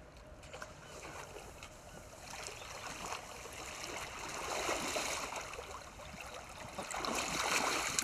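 Shallow river water splashing and sloshing around a wading angler's boots and a landing net as a hooked fish is netted. It swells louder about halfway through and again near the end.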